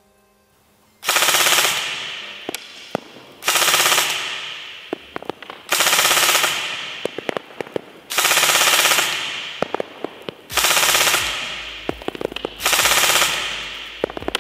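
Evolution Airsoft MK18 Mod 1 CarbonTech electric airsoft rifle (V2 gearbox) firing full auto: six short bursts, each about two-thirds of a second, roughly every two and a quarter seconds. Each burst echoes and fades in a large empty hall, and scattered sharp ticks follow.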